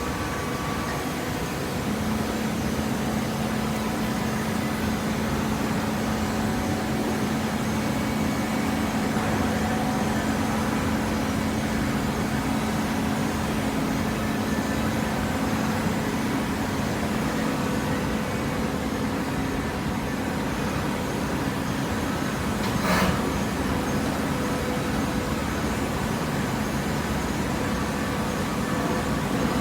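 Baling machine running with a steady hum that sets in about two seconds in, with one brief sharp noise about 23 seconds in.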